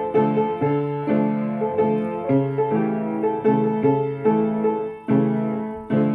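Upright piano played by hand: a steady run of struck chords and notes, about two a second, with short breaks in the flow about five and six seconds in.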